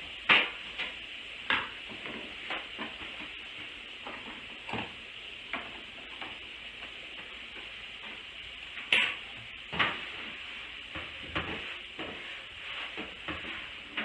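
Bacon sizzling in a frying pan with a steady hiss. Short clicks and clatters of kitchen items being handled come through it, the loudest just after the start and another pair around nine to ten seconds in.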